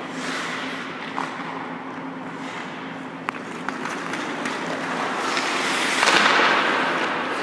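Hockey skates carving and scraping on rink ice, with a few sharp stick-and-puck clicks, then a loud scraping hiss about six seconds in as the skater cuts in at the net and the goaltender drops and slides in his pads. A steady hum from the rink's machinery runs underneath.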